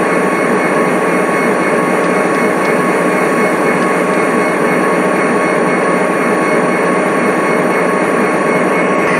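Train running past, a steady, even rumble and rail noise with a faint constant whine on top.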